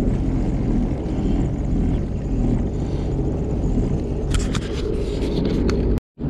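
Sea-Doo Fish Pro personal watercraft engine running at low speed, a steady low rumble. A run of sharp scraping clicks comes in over the last two seconds, and then the sound cuts off abruptly.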